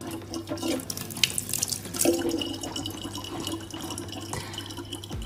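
Thin stream of water from a kitchen faucet pouring into the neck of a large plastic water bottle: a continuous trickling splash with small clicks and drips.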